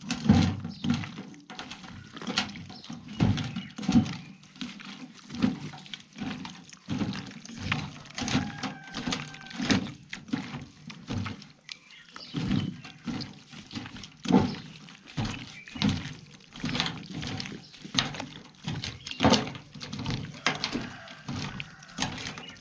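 Food-preparation handling: irregular soft thuds and knocks, about one or two a second, as spice containers and raw beef are handled while spices go onto the meat.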